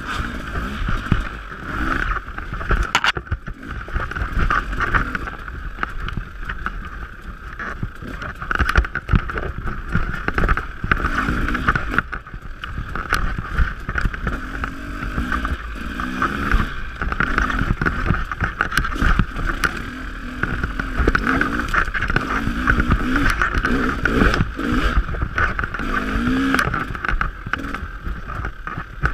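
Dirt bike engine running under load, its pitch rising and falling over and over with the throttle, with frequent sharp knocks and rattles from the bike over rough ground.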